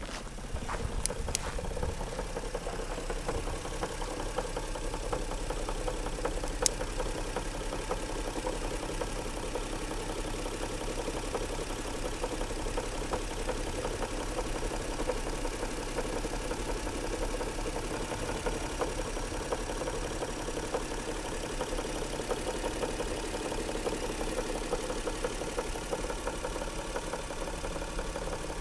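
Lexus RX300's 1MZ-FE V6 engine idling steadily with a fine, continuous knocking, and one sharper click about seven seconds in. The knock at idle was traced to a cracked flywheel.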